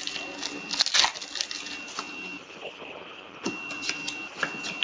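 Foil wrapper of a hockey trading card pack crinkling and tearing as it is opened, with cards handled, making a run of small crackles and clicks.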